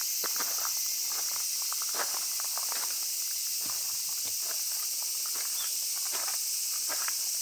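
A steady, high-pitched chorus of cicadas, with irregular footsteps of someone walking over it.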